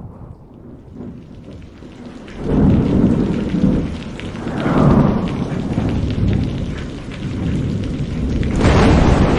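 Thunderstorm: steady rain with rolling thunder. The first two seconds are rain alone; thunder rumbles in about two and a half seconds in, swells again around five seconds, and rises once more near the end.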